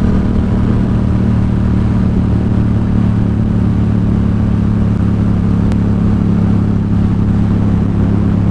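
Yamaha XSR700's parallel-twin engine, fitted with a Two Brothers SR1 aftermarket exhaust, running at a steady cruise as heard from the handlebars, holding an even pitch with no revving.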